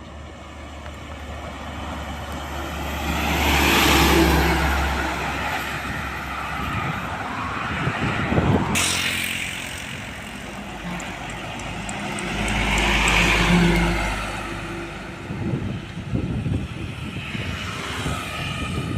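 Heavy road traffic passing close by on a highway: diesel engine and tyre noise swells and fades as vehicles go past, loudest about four seconds in and again about thirteen seconds in. There is a sharp click about nine seconds in.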